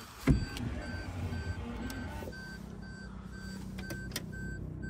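A short electronic beep repeating evenly, about three times a second, over a low steady hum, with a single sharp click about a third of a second in.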